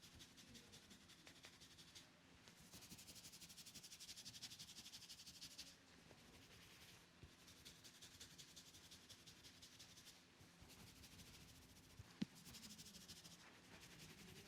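Fingers rubbing briskly over hair and scalp in a head massage: faint, fast, even rubbing strokes in stretches of a few seconds. One sharp click about twelve seconds in.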